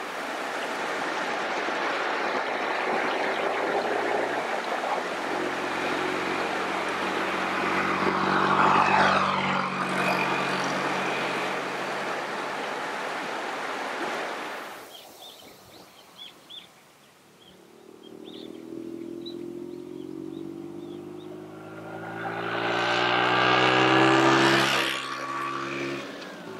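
Vespa 125 ET3 scooter's small two-stroke single-cylinder engine running as it rides past, loudest about eight or nine seconds in and then fading. After a short lull a scooter engine approaches again, rising in pitch as it accelerates, and is loudest near the end.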